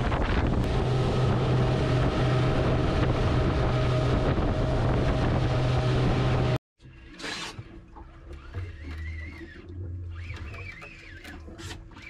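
Wind buffeting the microphone over a steady boat engine hum, which cuts off abruptly about six and a half seconds in. A quieter stretch follows with a low hum and a faint warbling high tone.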